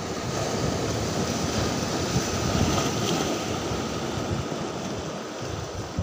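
Sea surf surging and washing against rocks, with wind rumbling on the microphone; the wash swells about halfway through, then eases.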